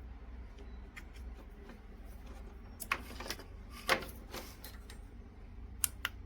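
A few light clicks and scrapes of handling, the sharpest about three and four seconds in and a quick pair near the end, over a steady low hum.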